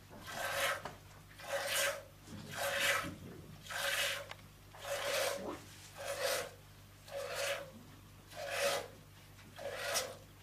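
Hand-milking a goat: streams of milk squirting into a half-full enamel mug with a swishing hiss, about one squirt a second in a steady rhythm.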